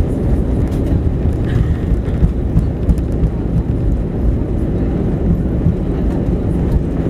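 Cabin noise of an Airbus A320 rolling along the runway after landing: a steady low rumble of the engines and the wheels on the tarmac.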